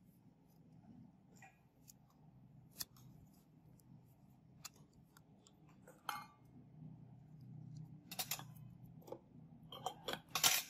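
Small sharp clicks and taps from handling the extraction tools, scattered at first and several close together near the end, over a faint low steady hum.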